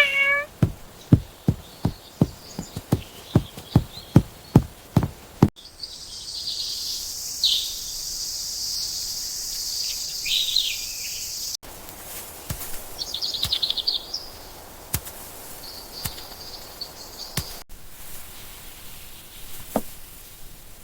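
A quick rising call, then a run of about a dozen dull knocks at roughly two a second. After that, insects buzz steadily, with a few bird chirps over them.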